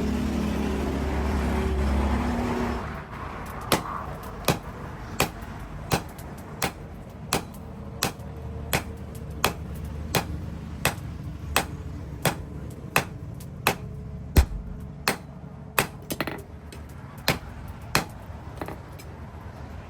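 A steady machine hum stops about three seconds in. Then a hand hammer strikes steel on an anvil in an even rhythm, about one blow every 0.7 seconds, with one heavier blow near the middle, as the blacksmith forges the axe.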